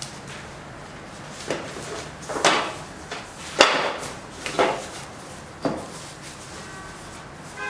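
Plastic wrapping on projection-screen parts being pulled and spread out by hand, rustling and scraping in five short swishes about a second apart.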